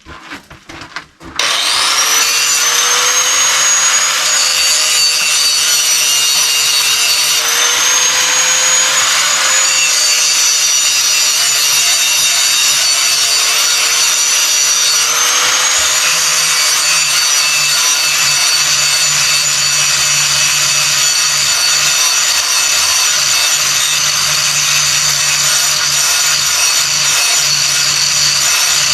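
Grinder with a 1/4 inch grinding wheel spins up about a second in and then runs steadily with a high whine, grinding the edges off the steel handles of blacksmith tongs.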